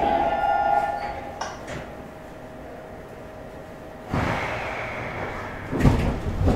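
Sliding doors of an old 2000-series Seoul subway car closing. A tone fades out in the first second and a half, then about four seconds in the doors slide shut with a rushing swish and end in two thuds.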